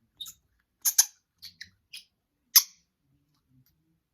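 A NeeDoh squishy stress toy being squeezed, giving about seven short squeaky whistles as air is forced out of it, the loudest about a second in and about two and a half seconds in.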